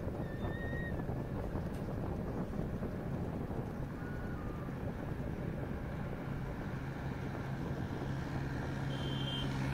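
Steady road and engine noise of a vehicle travelling along a highway, with wind on the microphone; a low engine hum grows stronger in the second half, and a few brief faint high tones sound over it.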